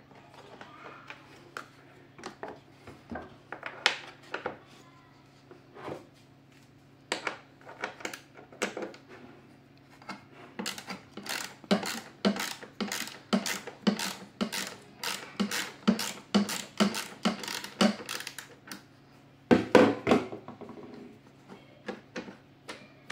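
Screwdriver work on a vacuum cleaner's plastic housing: scattered sharp clicks and taps as screws are undone. Through the middle there is a fairly regular run of about four clicks a second, and near the end there is one louder clatter.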